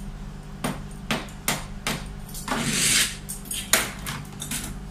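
Grooming scissors snipping the fur around a Pomeranian's front paw: a series of sharp metallic snips, roughly two a second, with a short rustling burst about halfway through.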